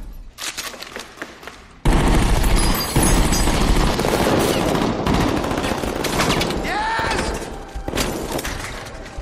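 Gunfire: a few scattered shots, then a sudden, sustained fusillade of rapid automatic rifle fire from about two seconds in, tailing off near the end.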